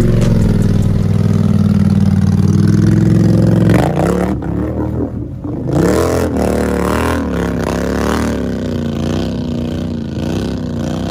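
An ATV engine revving hard and steady as its mud tyres churn through mud, breaking off about four seconds in. Then an ATV engine revs up and down as the quad ploughs through deep water.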